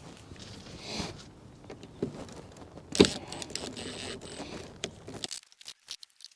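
Knocks and rattles of hand work on the deck, the sharpest knock about three seconds in. From about five seconds in it goes nearly quiet, with only scattered small clicks.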